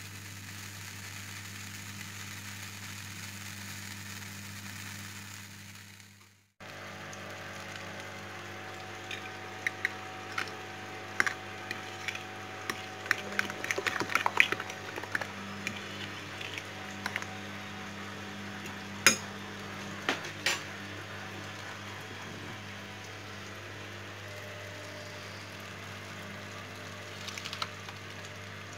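A fork whisking eggs in a bowl, its tines clicking rapidly and unevenly against the bowl's side, with two sharper knocks partway through. Before that, butter melts in a non-stick frying pan with a faint hiss, and a steady low hum runs underneath throughout.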